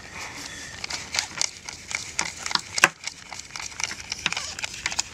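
Paper banknotes being handled and counted: irregular crisp rustles and snaps of the notes, one sharper snap a little past halfway.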